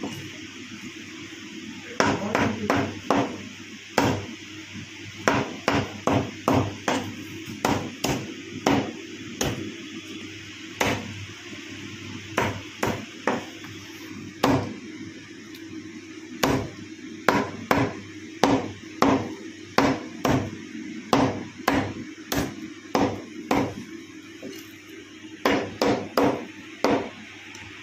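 A meat cleaver chopping broiler chicken into small bone-in pieces on a wooden chopping block: runs of sharp chops, two or three a second, with short pauses between the runs.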